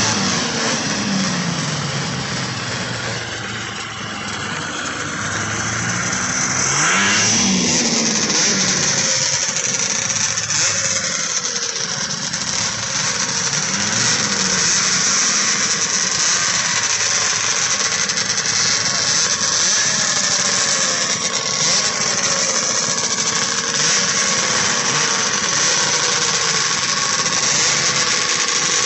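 Vintage two-stroke snowmobile engines running and revving several times, with a steady high whine from about seven seconds in.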